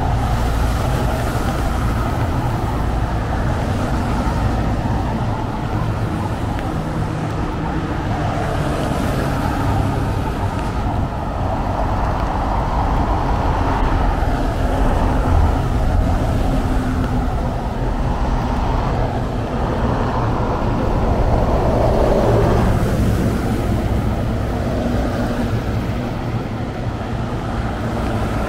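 Steady road traffic on a rain-wet city boulevard, cars passing one after another, swelling as vehicles go by close, around the middle and again near the end.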